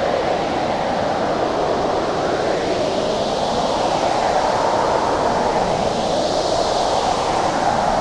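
Blizzard wind blowing steadily, a continuous rushing noise with gentle swells, gusting a little brighter about six seconds in.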